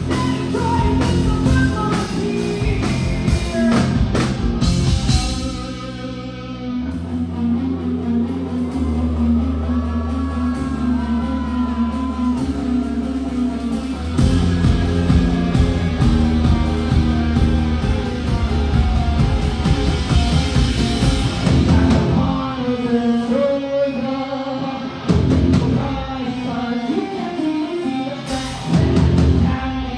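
Live rock band playing electric guitar, bass and drum kit, with singing. About six seconds in, the drums drop out, leaving long held bass notes. The full band comes back in about halfway through.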